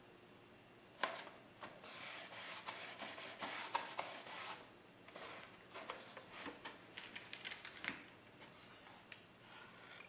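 Hands rubbing down decals on, and handling, a foam model-airplane fuselage: irregular scratchy rubbing and crackling, starting with a sharp click about a second in and fading out near the end.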